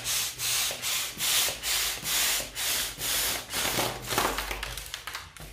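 Hand balloon pump worked in quick strokes, a rush of air with each stroke at about two and a half strokes a second, inflating a foil number balloon. Near the end the strokes turn irregular and fade out as the balloon fills.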